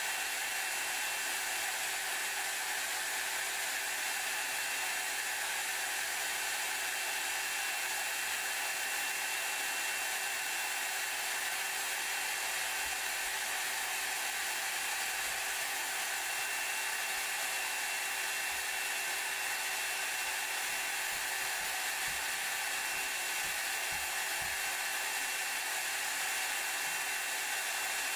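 Hair dryer running steadily on one setting: a constant rush of blown air with a thin, high, steady whine.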